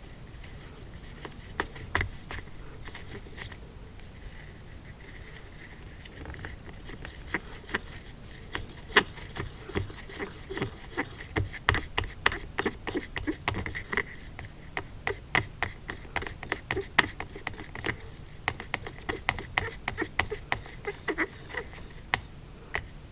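Stirring a watered-down paint wash in a small cup: a stirrer scraping and clicking against the container, in quick irregular taps, several a second, from about a third of the way in until near the end.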